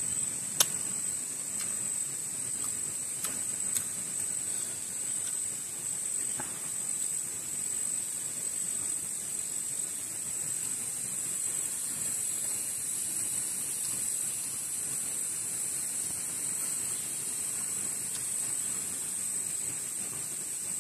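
Steady high-pitched insect drone. A sharp click comes about half a second in, with a few fainter ticks over the next few seconds.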